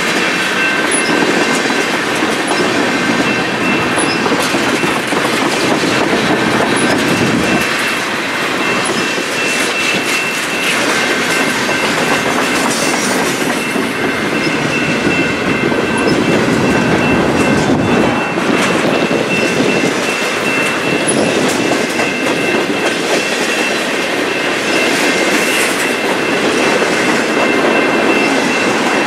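Freight train of railroad tank cars rolling past close by: a steady rumble of steel wheels on rail with clickety-clack over the joints. A thin, steady high squeal from the wheels runs over it and swells and fades several times.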